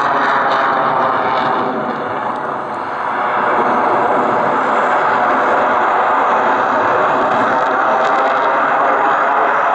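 Loud jet noise from a MiG-29M2 fighter's twin engines as it manoeuvres overhead, easing off briefly about two to three seconds in and then building again.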